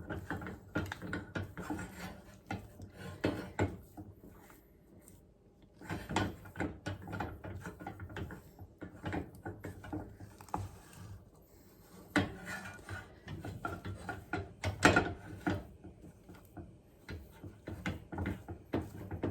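A spatula stirring and scraping thick melted chocolate, butter and cocoa in a pot, in irregular scrapes and knocks against the pot, with a quieter lull about a quarter of the way through.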